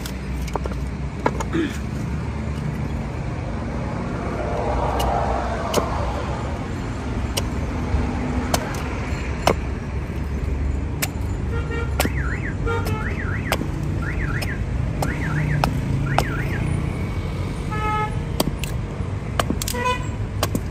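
Small hand hatchet (tesha) hewing a block of fresh wood: irregular sharp chops, about one a second, over steady street traffic. A little past the middle, a warbling alarm tone rises and falls over and over for a few seconds, and vehicle horns toot briefly near the end.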